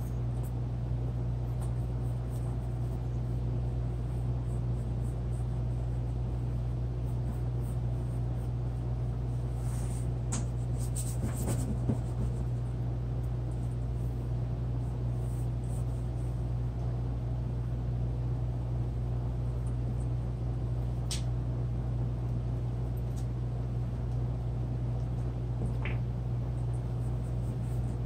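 A steady low hum throughout, with a few faint short scratches or taps now and then, most around ten to twelve seconds in.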